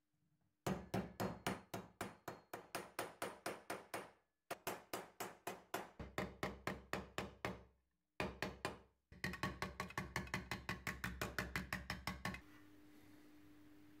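Hammer tapping a dented sheet-metal panel from an antique TIX coffee grinder against a small anvil to straighten it out. The metal rings with quick, even light strikes of about four a second, in runs broken by short pauses, and the tapping stops shortly before the end.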